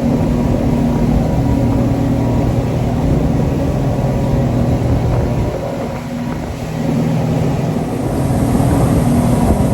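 A tour boat's engines run steadily at speed, with rushing wind and water noise. The engine note eases briefly about six seconds in, then picks up again.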